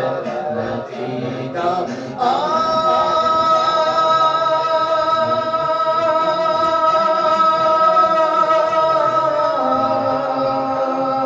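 Men singing a naat, an Urdu devotional song, into microphones; about two seconds in one voice settles into a long drawn-out note, and the pitch changes near the end.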